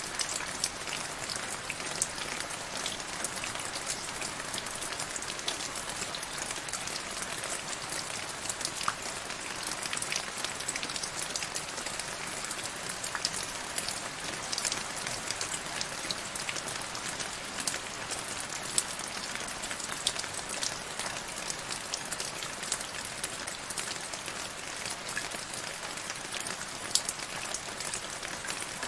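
Steady rain falling into a shallow puddle on grass: a constant hiss of many small drop splashes, with an occasional louder single drop.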